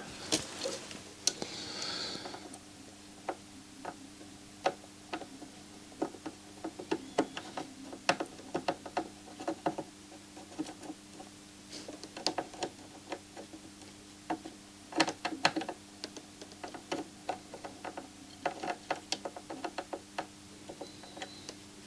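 Small irregular clicks and taps of hand tools working on a radio's circuit board during fine soldering work, over a faint steady hum.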